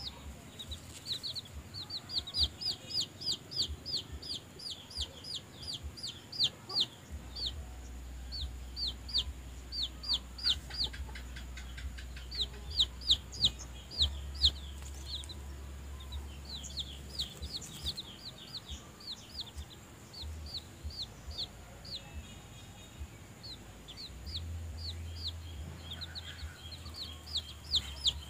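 Baby chicks peeping from under a brooding hen: runs of short, high, falling chirps, a few a second, broken by brief pauses.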